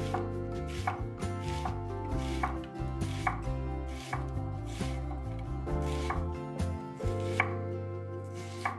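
Chef's knife slicing an onion into half rings on an end-grain wooden cutting board: a sharp knock of the blade on the board a little more than once a second, with the crisp crunch of the onion between strokes.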